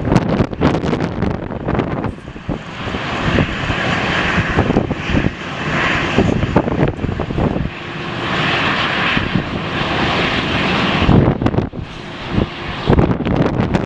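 Airliner's engines passing, a loud rushing noise that builds a couple of seconds in and falls away near the end. Heavy wind buffets the microphone throughout.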